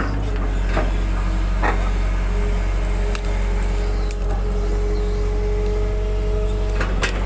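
Excavator diesel engine running steadily with a low rumble, a hydraulic whine from about two seconds in until near the end, and a few short metallic knocks.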